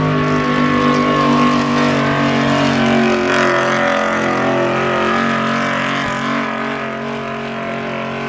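Pickup truck engine held at high revs under full throttle, dragging a weight-transfer pulling sled. The note is steady and dips slightly about three seconds in.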